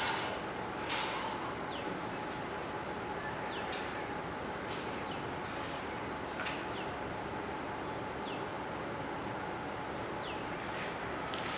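Outdoor ambience of a steady, high-pitched insect drone, with a bird's short falling chirps repeating irregularly about once a second, over a soft background hiss.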